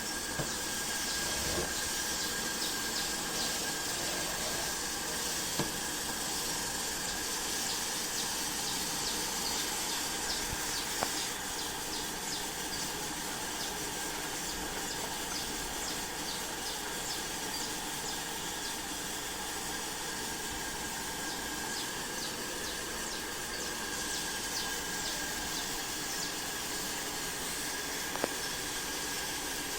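Steady hiss of static with faint crackles and a thin high steady tone, with a few isolated clicks: the receiver noise of an untuned portable black-and-white TV.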